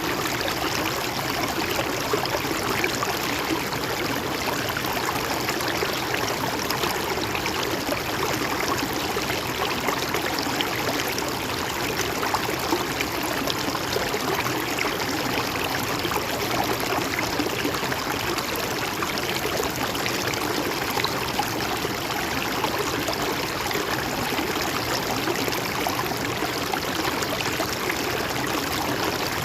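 A river or stream flowing steadily over rocks, a constant rushing and gurgling of running water.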